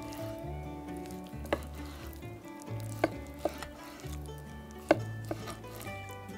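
Chef's knife chopping raw chicken breast on a wooden cutting board: about five sharp knocks of the blade striking the board, the loudest near the end, over soft background music.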